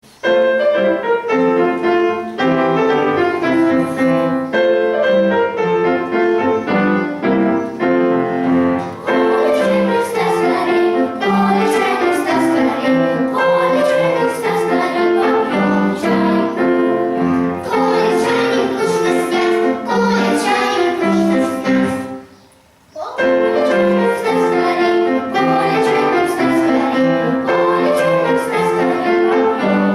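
Piano playing the tune of a comic song. It breaks off briefly about three quarters of the way through, then goes on.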